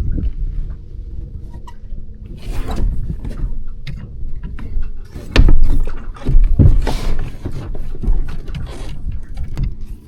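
Sounds aboard a small sailboat under way: water splashing against the hull in several short washes, over a low wind rumble, with two sharp knocks in the middle.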